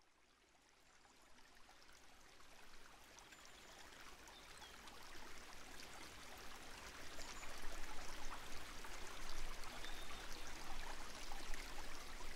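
A steady rushing of running water fades in from silence about a second in and grows gradually louder.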